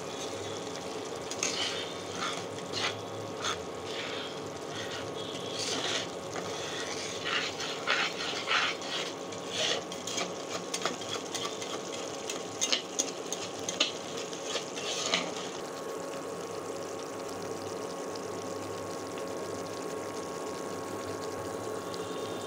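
Mustard-paste masala bubbling and sizzling in oil in a non-stick kadai, being fried down until the oil separates. A spatula scrapes and taps against the pan in many short clicks until about fifteen seconds in, over the steady hum of the induction cooktop.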